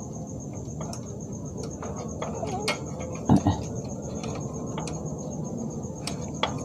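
Small clicks and knocks of metal and plastic parts being handled and slid into the rail of a copier's automatic document feeder, with one louder thump a little past three seconds. Steady high insect chirping runs underneath.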